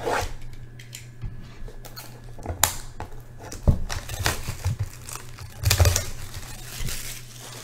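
Plastic shrink-wrap crinkling and tearing as it is peeled off a sealed box of trading cards, in irregular crackles with the loudest burst about six seconds in.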